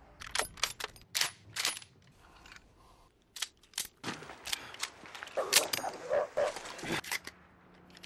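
Firearms being handled, a pistol and a pump-action shotgun: a quick run of sharp metallic clicks in the first two seconds, then more scattered clicks and duller knocks.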